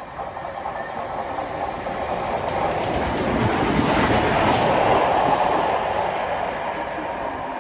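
LMS Princess Royal class steam locomotive 6201 Princess Elizabeth, a four-cylinder Pacific, and its coaches passing close by on the main line. The sound grows steadily louder, peaks about four seconds in as the train passes right beneath, and then eases as it runs away.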